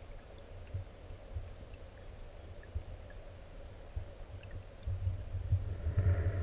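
Muffled underwater rumble of stream current against a GoPro in its waterproof housing, with irregular low thumps that grow louder over the last second or so.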